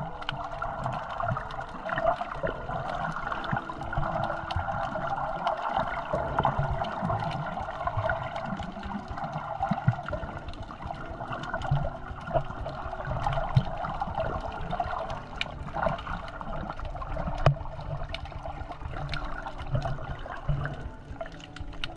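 Water heard through a camera held under the surface while snorkeling: a steady, muffled water rush with rumble and many small clicks.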